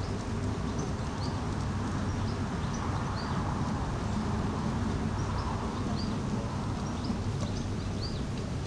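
A miniature garden railway train running along its track, heard as a steady low rumble, with small birds chirping repeatedly over it.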